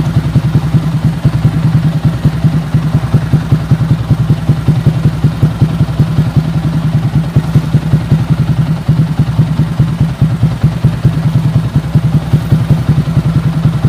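Yamaha Sniper MX135 single-cylinder four-stroke motorcycle engine, bored up to 177cc and breathing through an aftermarket Kalkal exhaust pipe, idling steadily with a rapid, even exhaust pulse during its morning warm-up.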